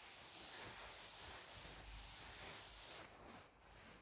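Chalkboard duster wiped across a chalk-covered blackboard, a faint rubbing hiss that stops about three seconds in.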